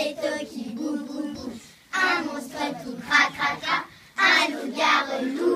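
A group of children singing a song together, in several phrases broken by short pauses.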